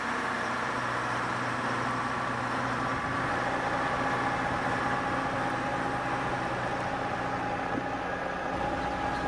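An engine running steadily at idle: a constant hum with several held tones.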